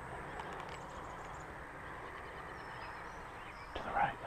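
Quiet rural outdoor background hiss with a few faint, high bird chirps in the second half. Near the end there is a short, louder sound close to the microphone.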